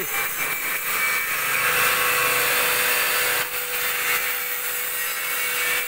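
Mitsubishi milling machine running, cutting metal: a steady hissing machining noise with a steady whine that comes in about a second and a half in.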